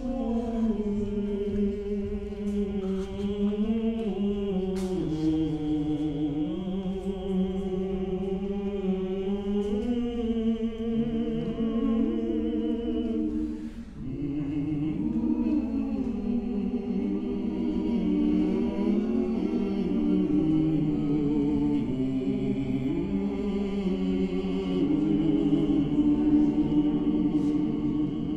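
Synagogue choir singing unaccompanied in sustained, slow harmony, with a brief pause about halfway through.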